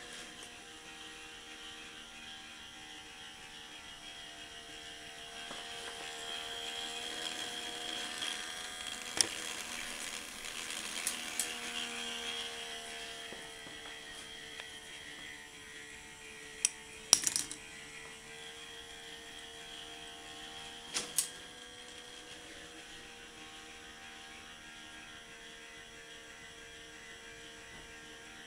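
Small electric K'nex motor running steadily, a hum that wavers slightly in pitch as it drives the ball machine. A few sharp clacks sound over it, the loudest about two-thirds of the way through.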